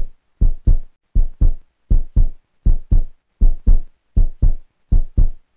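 Heartbeat sound effect: low double thumps (lub-dub), one pair about every three-quarters of a second, with silence between the pairs.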